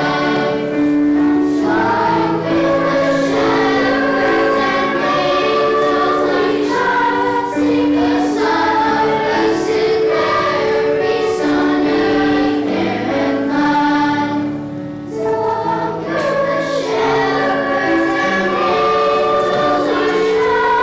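Elementary school children's choir singing a Christmas song, holding long notes, with a brief drop in volume about fifteen seconds in.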